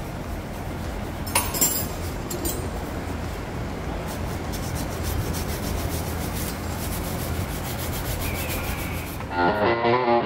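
Steady scraping and rubbing of work on a pickup's front brake caliper, with a few sharp metallic clicks early on. Music starts near the end.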